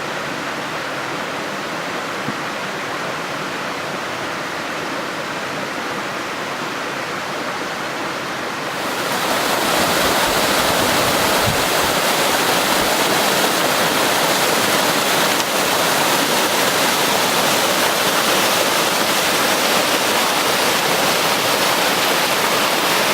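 Waterfall on a mountain river, a steady rush of falling water that grows louder and brighter about nine seconds in and then holds steady.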